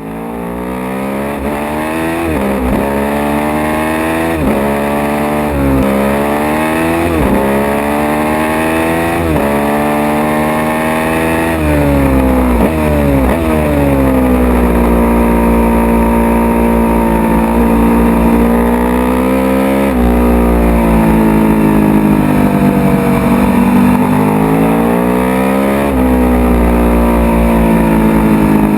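Sport motorcycle engine recorded on board, accelerating hard through the gears: the pitch climbs and drops sharply at each of several quick upshifts. For the second half it holds a high, fairly steady pitch at sustained throttle.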